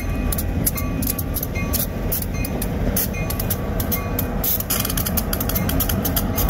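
Union Pacific GP15-1 diesel locomotives with EMD two-stroke engines rumbling past at low speed. Rapid sharp metallic dings and clicks sound over the engine noise.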